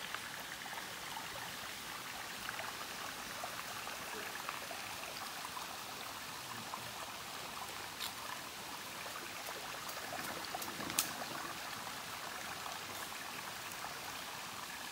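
Shallow stream water running over rock in a steady trickling rush, with a sharp click about eleven seconds in.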